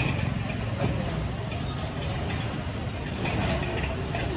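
Steady low engine rumble of roadside traffic, with faint indistinct voices.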